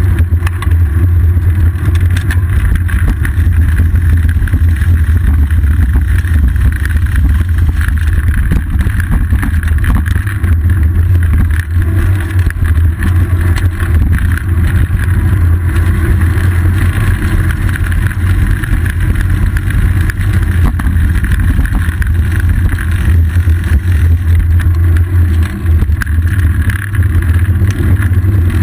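Loud, steady low rumble of a bicycle rolling over city pavement, picked up by a GoPro Hero 2 mounted on the seat post: road vibration and wind noise on the camera.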